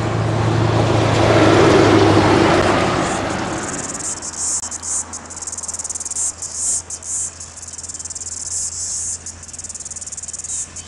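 A diesel-hauled freight train passing close by, loudest about two seconds in and dying away by about four seconds. Then insects shrill in pulses with short gaps, over a low steady hum.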